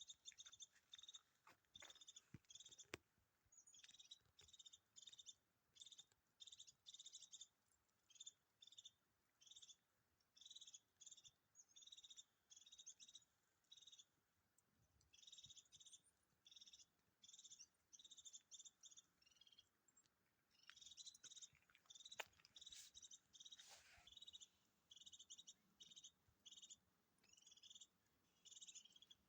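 European goldfinch singing faintly: short, high twittering phrases repeated about one and a half times a second, with a couple of brief pauses.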